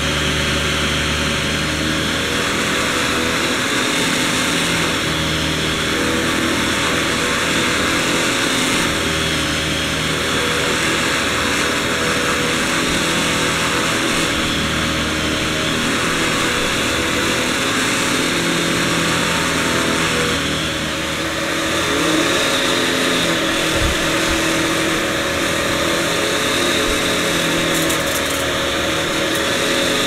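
Canister vacuum cleaner running steadily while its floor head is pushed back and forth over carpet, with a low hum that comes and goes every few seconds.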